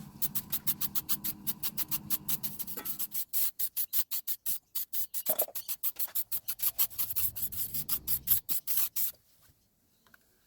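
Fast, even hand strokes of a rasping or scrubbing tool on a hard surface, about six a second, stopping abruptly about nine seconds in.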